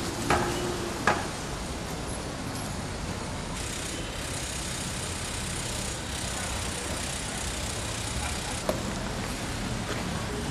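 Steady city street traffic noise, a low rumble of passing vehicles, with a couple of sharp clicks in the first second or so and another near the end.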